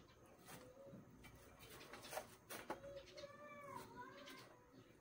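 An animal's call, about a second long, falling and then rising in pitch a little past the middle. A few short, faint knocks come before it.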